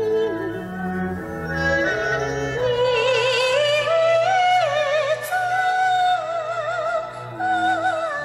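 Yue opera accompaniment music: a melody led by bowed strings, with wide vibrato, over sustained low notes. The melody steps up in pitch about three seconds in.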